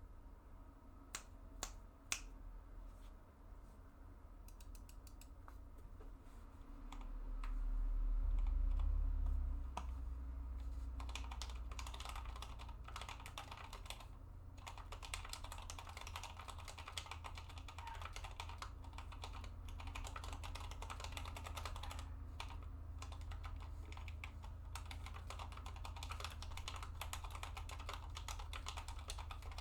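Custom ID80 mechanical keyboard with lubed and filmed Outemu Sky tactile switches being typed on: a few single keystrokes, then steady continuous typing. A low rumble swells for a few seconds about a quarter of the way in.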